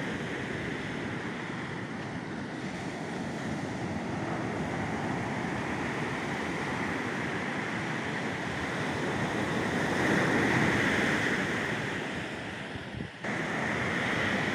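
Ocean surf breaking on a sand beach: a steady wash of waves that swells louder about ten seconds in, with wind on the microphone.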